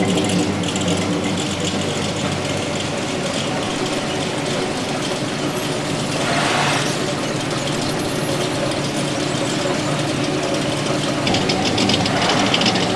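Classic American cars' engines idling with a steady low hum. A car passes close by about six seconds in, and a fast ticking rattle comes in near the end.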